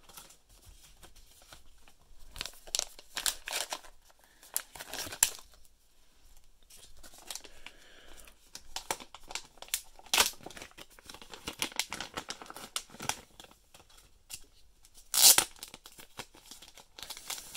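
A black plastic mystery-pack pouch being torn open and handled, with crinkling of the pouch and the cards' clear plastic sleeve in irregular bursts; the loudest burst comes near the end.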